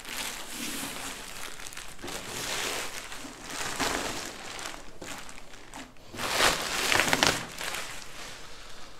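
Pink anti-static plastic bag crinkling and rustling as it is pulled off a rack-mount network switch, loudest in a burst about six to seven seconds in.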